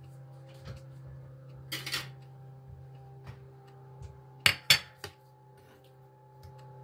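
A ceramic dish set down on a stone countertop, two sharp clinks about four and a half seconds in and a lighter one just after, among light knocks and a short scrape of a steel cleaver on a plastic cutting board. A steady low hum runs underneath.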